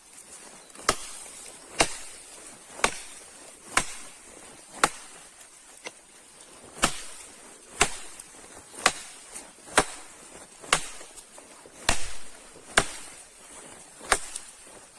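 Axe chopping wood, steady blows about once a second, with a short pause about halfway through.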